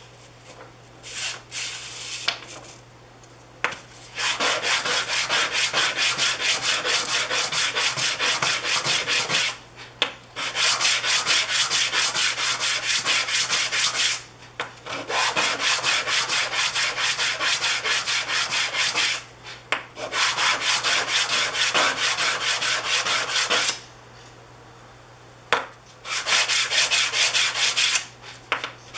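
Small wooden segments being hand-sanded on sandpaper in quick, rhythmic back-and-forth strokes, in several bouts of a few seconds each with short pauses between them.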